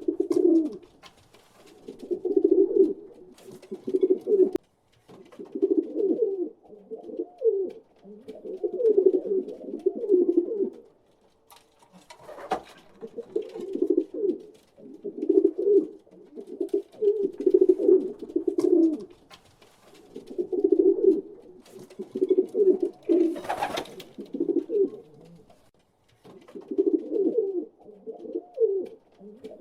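Several pigeons cooing, overlapping phrases repeating every second or two with short pauses between them. A couple of brief sharp rustles or flutters come in about halfway through and again past two-thirds of the way.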